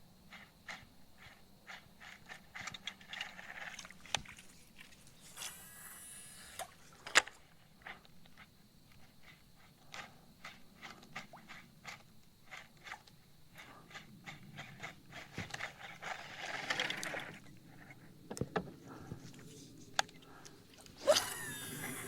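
Scattered clicks and knocks, with short hissing bursts about six seconds in, again around sixteen seconds, and once more near the end.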